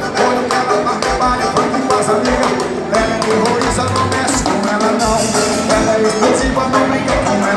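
Live band music with drums and percussion, loud and continuous.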